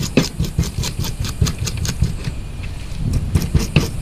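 Knife cutting the head off a porgy: a fast, uneven run of crunching strokes as the blade works through bone.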